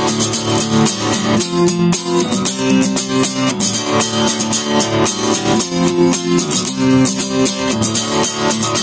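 Acoustic guitar strummed in a fast, steady rhythm of full chords.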